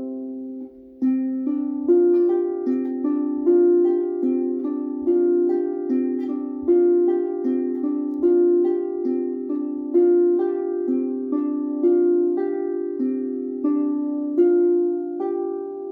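Harp played solo: a slow melody of single plucked notes, each ringing on as the next is struck, with a short pause about a second in.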